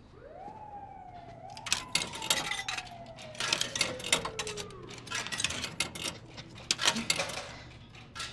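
Clicks and knocks at a snack vending machine as its keypad is worked, coming irregularly from about two seconds in. Behind them a siren-like tone jumps up and slowly falls away over several seconds.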